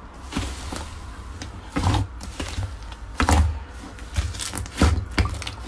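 Slime being squeezed and worked by hand: irregular sticky squelches and clicks, with louder ones about two seconds in, a little after three seconds and near the end.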